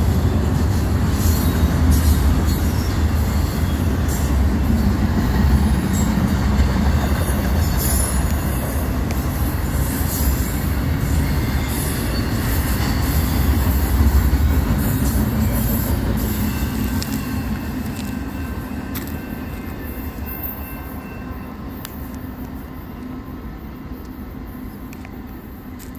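Double-stack intermodal freight train's well cars rolling past at close range: a steady rumble of wheels on rail with scattered clanks. It fades from a little over halfway through as the end of the train goes by.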